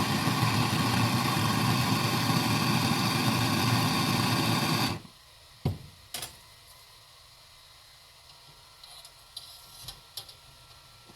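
Steady loud rushing hiss of a heating tool warming a fork part, cutting off suddenly about five seconds in. Then two sharp clicks and a few faint taps.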